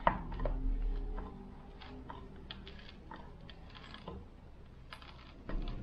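Wooden furniture leg being screwed by hand into its metal mounting plate: faint, irregular clicks and scrapes of the threaded leg turning, with a louder knock right at the start.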